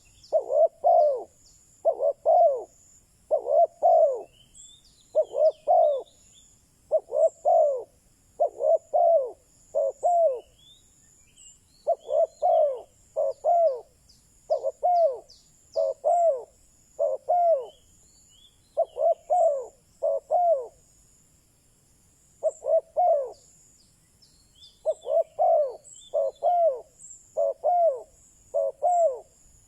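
Spotted dove cooing: phrases of short, arched coo notes, several in a row, broken by pauses of one to three seconds. Faint high chirps of small birds sound above it.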